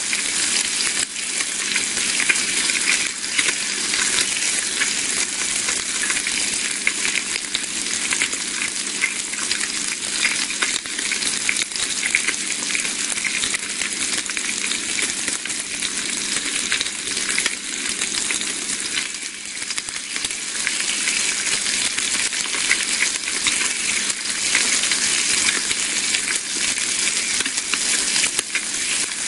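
Bacon sizzling in a hot pan: a steady, dense frying hiss with constant fine crackles and pops.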